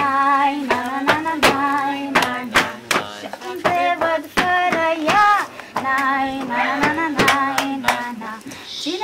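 A group of young people singing a Romanian song together in unison, clapping along in time, about one to two claps a second.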